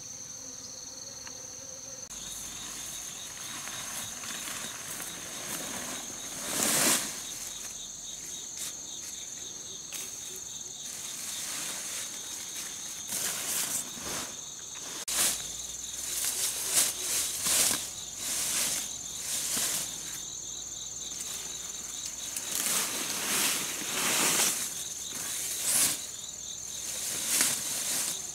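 A bee buzzing at a flower for about the first two seconds, then a steady high-pitched insect chorus with crickets. Repeated bursts of rustling as leafy fronds and the tarp shelter's canvas are handled, the loudest about seven seconds in and several more in the second half.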